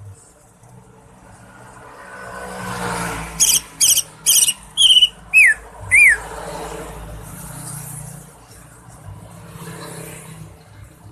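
Cucak ijo (green leafbird) calling: a quick run of six sharp, high chirps over about three seconds, the last two falling whistles. Before the calls, the noise of a passing vehicle swells and fades.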